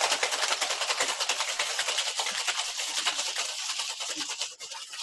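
Ice cubes rattling fast and hard inside a two-piece metal cocktail shaker being shaken vigorously to chill the drink. The clatter is continuous, then thins out and fades about four and a half seconds in.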